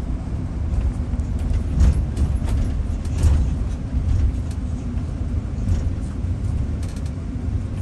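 Inside a coach bus on the move: steady low rumble of engine and road noise, with a few faint clicks and rattles.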